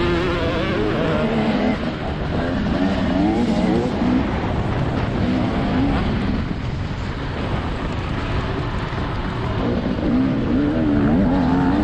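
TM 300 motocross bike's engine heard from the rider's helmet, revving up and down repeatedly as the throttle is opened and rolled off around the track, over a steady rush of wind and track noise.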